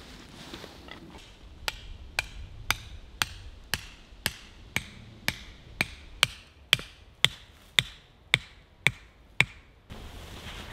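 A tent peg being hammered into the ground with a steady run of about sixteen sharp blows, roughly two a second.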